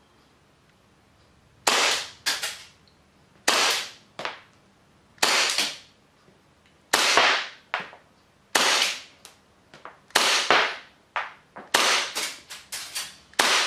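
Tokyo Marui Hi-Capa 5.1 Gold Match gas blowback airsoft pistol fired eight times, slowly and evenly, on 144A (duster-type) gas through a chronograph, clocking about 275 fps. Each sharp crack is followed by a fainter snap about half a second later.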